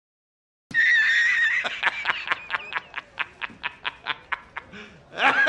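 A man laughing loudly: a long high-pitched cry, then rapid ha-ha-ha bursts that slow and fade, and a fresh burst of laughter just before the end.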